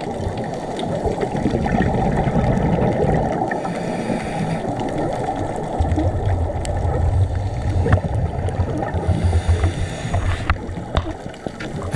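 Scuba diver's breathing heard underwater through a camera housing: a muffled rush of regulator air and the low rumble of exhaled bubbles, which burble in a pulsing run from about halfway through.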